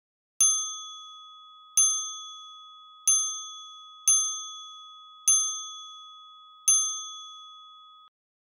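A bright chime sound effect struck six times, about one to one and a half seconds apart, each ding ringing on and fading under the next, marking objects magically disappearing. The ringing cuts off abruptly near the end, with dead silence around it.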